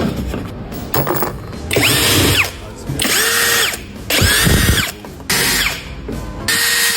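Power tool run in about five short bursts, each under a second, spinning up and winding down. It is being used in replacing a Mercedes lower control arm whose ball joint is worn and running dry.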